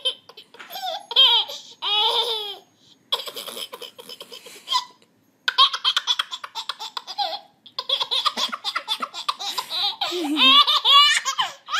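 Baby laughing hysterically: high-pitched belly laughs and giggles in several long fits, broken by short pauses for breath.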